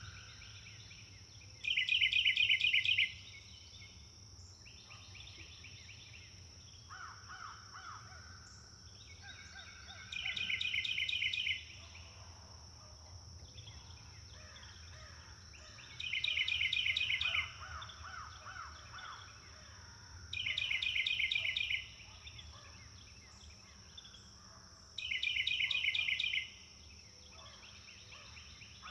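Forest birdsong: one bird repeats a loud, rapid trill five times, each lasting about a second and a half and coming every four to six seconds. Quieter, lower trills from other birds sound between them over a steady high-pitched hum.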